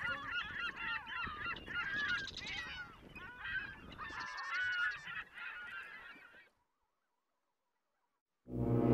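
A flock of birds calling, many short wavering calls overlapping each other, fading out about six and a half seconds in. After a brief silence a loud, deep music hit starts near the end.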